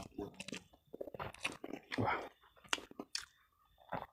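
A person chewing a mouthful of food with crunching bites, in irregular bursts that thin out in the last second.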